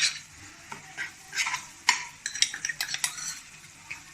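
A spoon stirring and scraping onions, garlic, ginger and chilli frying in oil in a kadai: irregular clinks and scrapes against the pan over a light sizzle.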